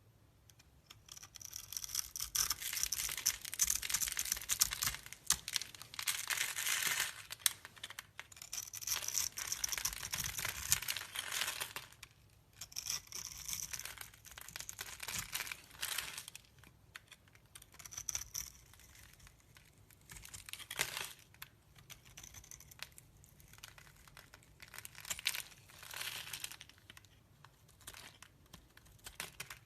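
Knife cutting through a bar of soap: dry crackling and crumbling in repeated strokes of a second or a few seconds, with short pauses between them.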